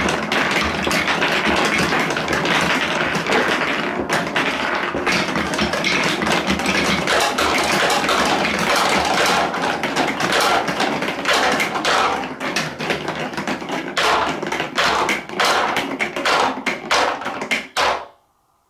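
Large balls rolling along a Trix Track marble run of wooden and plastic wave-slope track: a steady rattling roll full of clacks. In the second half it thins into separate clacks as the balls drop into a plastic toy dump truck, then cuts off suddenly near the end.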